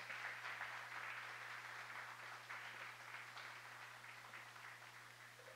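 A small audience applauding, the clapping thinning out and fading away near the end.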